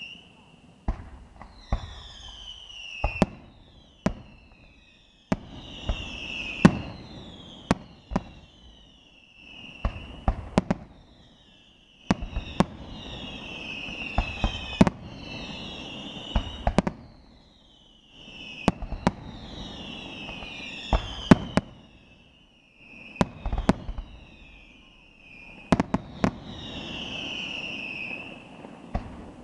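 Aerial fireworks display: sharp bangs come in clusters every few seconds over a crackling hiss. Many shrill whistles fall in pitch between the bangs.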